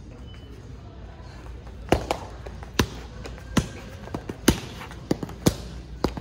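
Punches landing on handheld focus mitts: a string of about seven sharp smacks, irregularly spaced, starting about two seconds in.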